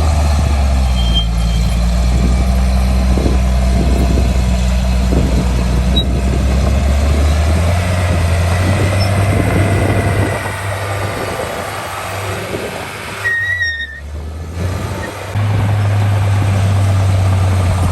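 Heavy diesel earthmoving machinery running with a deep, steady engine drone. The drone drops away briefly about three-quarters of the way through, then comes back at full strength. A short high squeal sounds just before the drop.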